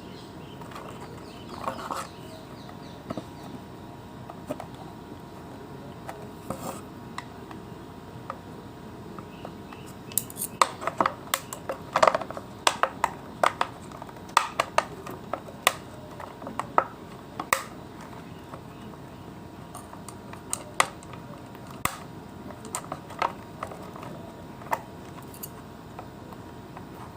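Hand tools and small parts clicking and clinking against the plastic and metal of an electric iron as its handle is taken apart. The clicks come in a dense cluster from about ten seconds in, then scattered taps until the end.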